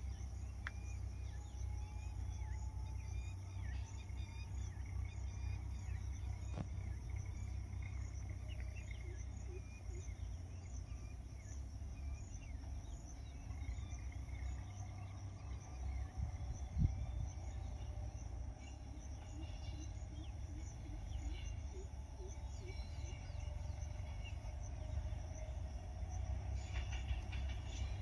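Outdoor ambience of insects, crickets chirping in a steady repeating rhythm with a high continuous whine, over a steady low rumble. There is a short click about six seconds in and a louder thump about seventeen seconds in.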